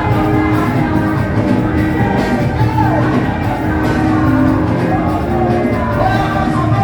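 Loud music with singing voices, held at a steady level.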